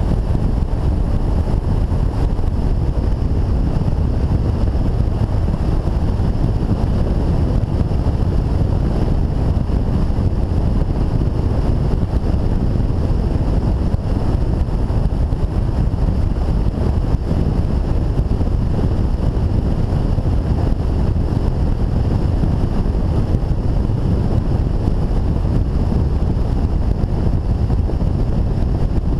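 BMW touring motorcycle cruising at steady road speed: a constant rush of wind over the microphone mixed with engine and tyre drone, with no change in speed or revs.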